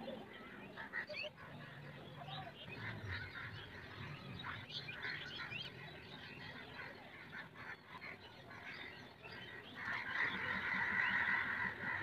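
Background animal calls: many short calls scattered through, growing louder and denser near the end.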